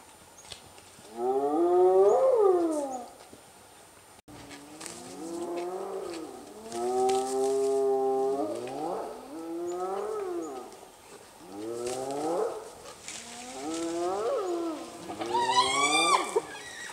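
Spotted hyenas calling while squabbling over a carcass: a string of drawn-out, pitched calls, each a second or two long, sliding up and down in pitch, with a higher call near the end.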